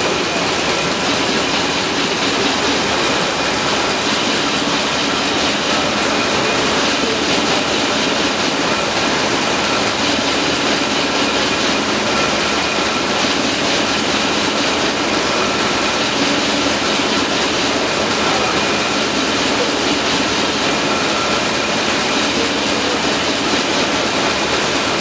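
Vintage multi-cylinder vertical stationary engine running steadily, a loud, even, fast mechanical clatter that does not change.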